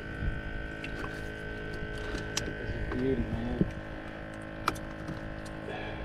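A steady hum with a thin high held tone, and a few light taps and knocks as a redfish is laid out on a boat deck's measuring board; a faint voice briefly about three seconds in.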